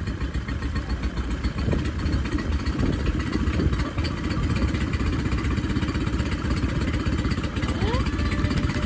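Old Mercury outboard motor running steadily in neutral out of the water, with rapid, even firing. The engine has been brought back to life after sitting unused for years.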